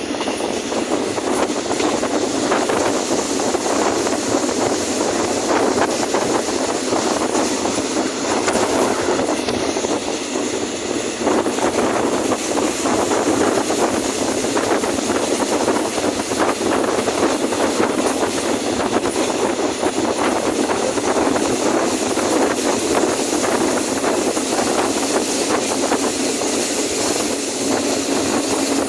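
An engine running steadily with a dense, even clatter, sounding solid and tight, which the owner takes as a sign of an engine in good health.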